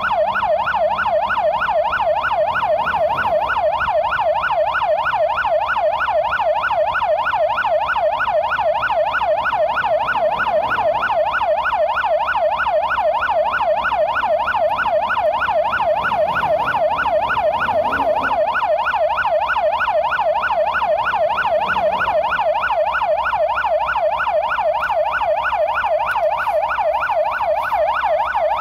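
Emergency vehicle siren sounding a fast, steady yelp, its pitch rising and falling about three times a second without a break.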